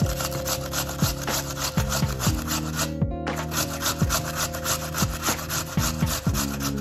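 A raw potato scraped up and down a stainless-steel box grater in quick, even strokes, shredding it onto a wooden board, with a brief pause about three seconds in. Soft background music plays underneath.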